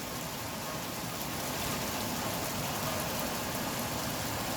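Steady rain falling with large drops, an even hiss on surfaces.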